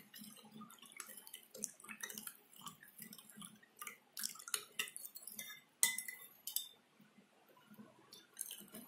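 Metal spoon stirring liquid in a glass bowl: faint, irregular clinks of the spoon against the glass with light sloshing, easing off for a moment about seven seconds in.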